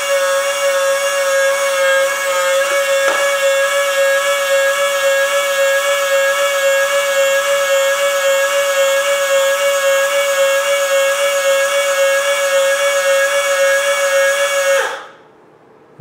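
Electric lift motor of an RC King Hauler dump truck running steadily with a high whine as it raises the bed loaded with gravel, then cutting off suddenly about 15 seconds in as the limit switch stops it at the top of travel.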